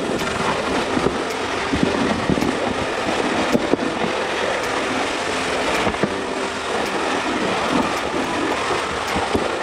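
Loaded plastic sled being towed over snow and ice, a steady scraping hiss with irregular knocks and rattles as it bumps along.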